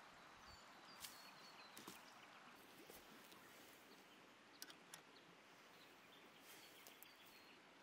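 Faint outdoor ambience: the steady low rush of river water, with a few brief high bird chirps and several soft clicks.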